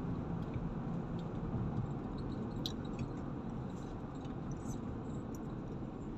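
Steady low road and engine noise inside the cabin of a moving car, with a couple of faint ticks.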